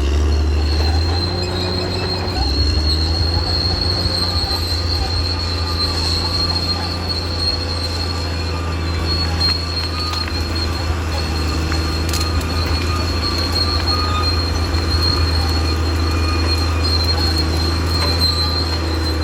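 Caterpillar D6R XL bulldozer at work: its diesel engine runs steadily under a constant high-pitched squeal.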